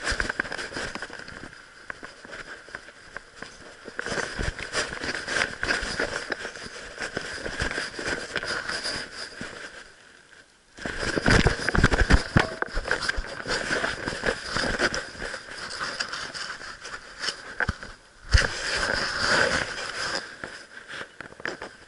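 Crackling, rustling handling noise from a Sony action camera worn by a dog, the housing rubbing and knocking against the dog's fur as it moves about. The noise drops almost to quiet for a moment about ten seconds in, then comes back louder.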